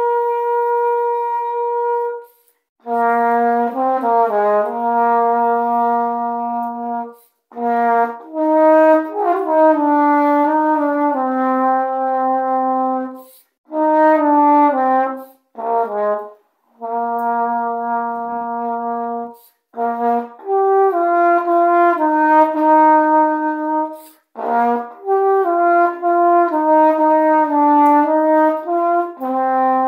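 Yamaha YAH-201 E-flat tenor horn played solo: a sweet, fairly high melody in phrases of held and moving notes, with short breaks for breath between phrases.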